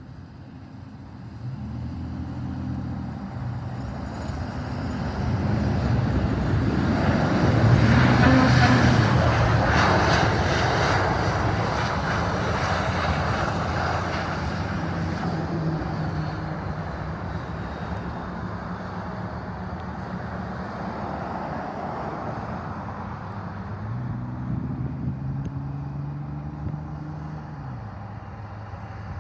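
An aircraft flying past, its engine noise building to a loud peak about eight to ten seconds in and then slowly fading away.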